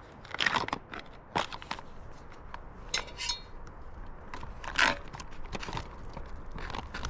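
Wood campfire crackling, with irregular sharp pops and snaps and a louder pop about five seconds in.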